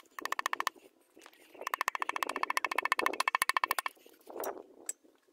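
A piston being tapped down through a ring compressor into its cylinder with a metal tool handle: rapid runs of light metallic taps, a short run at the start and a longer one of about two seconds after a brief pause.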